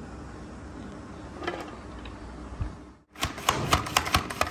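Hand-lever vegetable cutter pressing carrots through its blade grid. A single knock comes first, then after a brief break about three seconds in, a quick run of sharp clicks and clacks.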